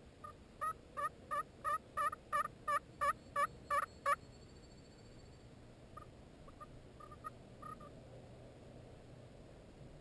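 Turkey yelps: a run of about a dozen evenly spaced yelps, about three a second, growing louder at first. A few softer, shorter turkey notes follow a couple of seconds later.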